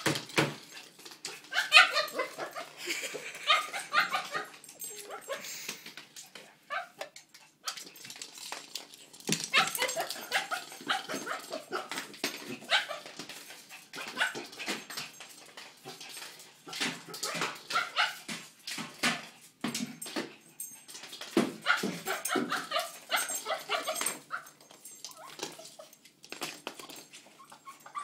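Small fluffy dog making excited play noises in rapid, irregular bursts, with short quiet gaps about a quarter of the way in and again near the end.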